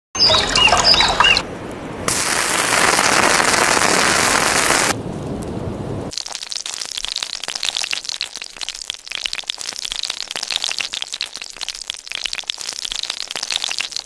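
Food sizzling and crackling in oil on a hot flat stone slab, a dense run of small pops from about six seconds in. Before it, a loud even rushing noise lasts about three seconds, and the opening second has water splashing as the stone slab is dipped into the stream.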